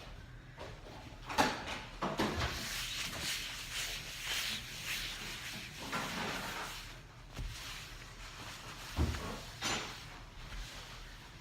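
Household clatter of tidying up: several sharp knocks of objects being handled and set down, with rustling in between.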